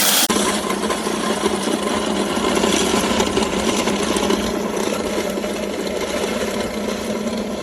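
Heavy-duty 3000 W electric grain mill running steadily, grinding grain into chicken feed: a continuous mechanical grinding hum.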